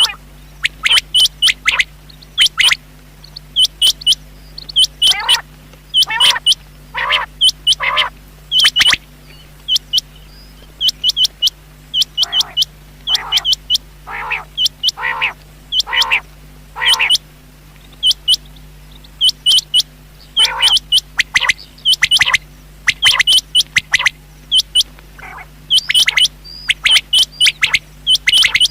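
Rain quail calling: short, sharp, high notes repeated in quick clusters, with runs of four or five lower, harsher notes in between. It is a call used to draw quail in for hunting.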